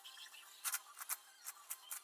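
Layers of an 11x11x11 puzzle cube being turned by hand: quick plastic clicks and rasps, about five of them, starting about two-thirds of a second in after a quieter moment.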